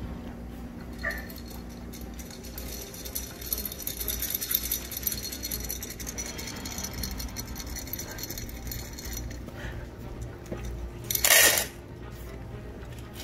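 A French bulldog puppy's claws clicking on a tile floor as it runs about, with fine rattling and jingling, and one short, loud rattle near the end.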